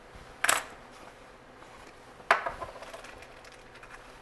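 Small objects handled on a hard bar counter: a short rustling thud about half a second in, then a sharper knock on the counter a little past two seconds, followed by faint small clicks and crinkles of a plastic zip bag being handled.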